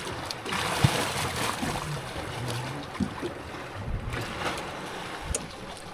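Water lapping against a boat's hull, with wind on the microphone and a few light knocks.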